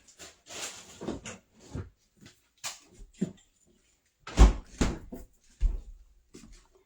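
Kitchen handling noises: a string of separate knocks and clunks, the loudest and deepest about four and a half seconds in.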